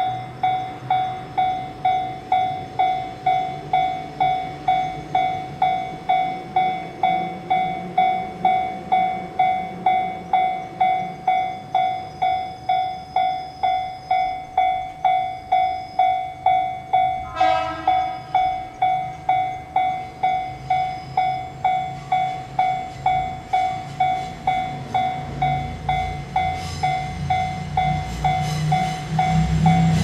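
Japanese level-crossing warning bell ringing steadily, about two strikes a second on one ringing tone. About halfway through comes a short sharp blast. In the last few seconds the low rumble and wheel clicks of an approaching electric train build up under the bell.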